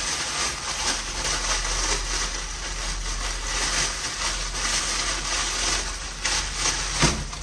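Plastic packaging rustling and crinkling as a parcel is unwrapped, with a sharp click about seven seconds in.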